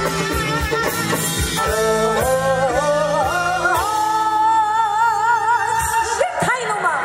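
A woman singing a Korean traditional-style song into a microphone over amplified backing music. The melody climbs in steps, holds a long note with wide vibrato, then drops sharply in pitch near the end.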